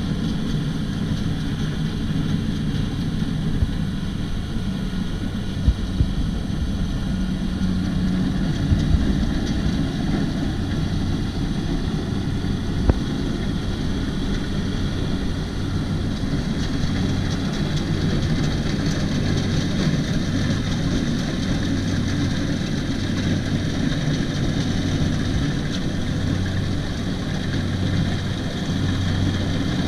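Kubota DC-70 combine harvester's diesel engine running steadily with a constant low hum, broken by a few short sharp knocks.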